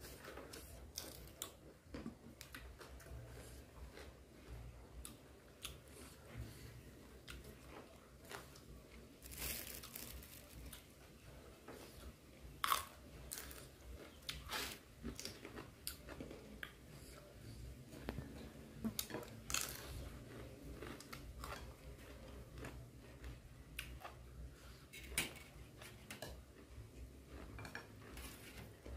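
A person chewing and crunching food close to the microphone: boiled beef tendon with raw greens and a raw long bean. Scattered short crunches and clicks throughout, the loudest about 13 s in, some from a metal spoon scraping and tapping a metal tray.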